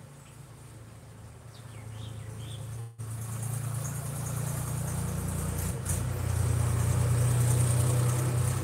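Steady low hum of a car running, heard from inside the cabin, with a faint high hiss; it cuts out for an instant about three seconds in and grows louder in the second half.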